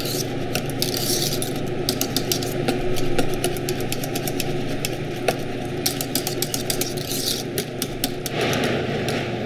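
Wire whisk (fouet) stirring and clicking against a stainless steel saucepan, whisking pastry cream over the heat as it thickens, with many quick taps and scrapes of the wires on the pan. A steady low hum runs underneath.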